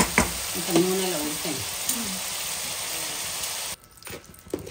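Raw chicken pieces sizzling in hot oil in a nonstick pan. The sizzle cuts off suddenly a little before four seconds in, leaving a much quieter stretch with a few small clicks.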